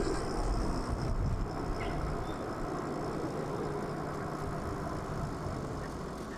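Steady rushing wind-and-tyre noise from riding an electric bike, slowly fading, with a vehicle engine humming faintly underneath.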